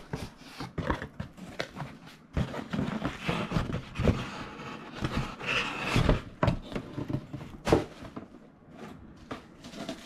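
Unpacking noises: packaging rustling and scraping, with irregular knocks and thumps as a heavy boxed appliance is handled.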